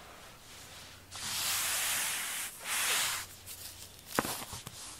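Two airy hissing noises, the first over a second long and the second about half a second, followed by one sharp knock and a few light taps.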